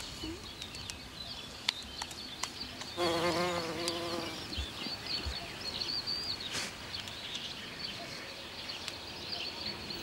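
A flying insect buzzes past for about a second and a half, starting about three seconds in, its hum wavering up and down in pitch. Small birds chirp high in the background.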